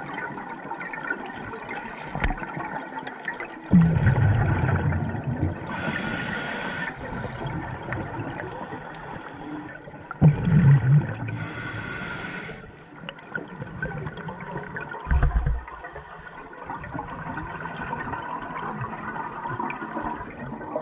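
Scuba breathing through a regulator underwater: two inhalations come as a hiss of about a second each, and three exhalations as low bursts of bubbling.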